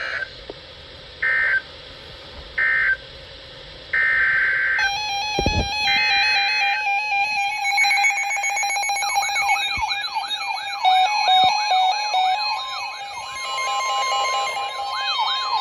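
Short, evenly spaced bursts of Emergency Alert System digital data tones about a second and a half apart, typical of the end-of-message burst. About five seconds in, a loud electronic alert sound starts, with stepped beeping tones, a fast up-and-down siren-like warble and a steady tone.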